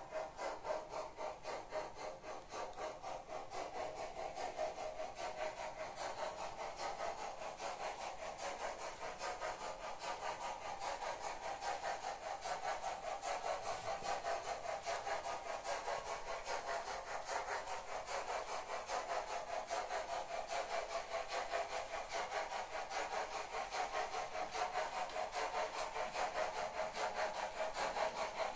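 Märklin H0 model train running over the layout's track: a steady motor whir with rapid, regular clicking from the wheels, growing slightly louder toward the end.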